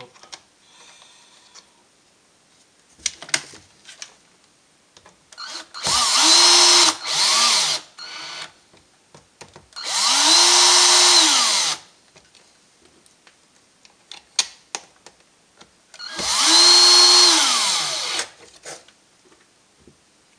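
Cordless drill-driver driving screws into the plastic case of a rebuilt battery pack: three runs of the motor, each spinning up, holding steady for a second or two and winding down, the first followed by a short extra burst. Small clicks of handling between the runs.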